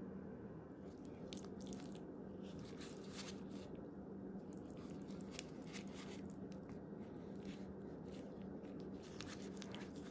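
Raw marinated chicken pieces being pushed onto a bamboo skewer by gloved hands: wet squishing with irregular clusters of crackling clicks, over a faint steady hum.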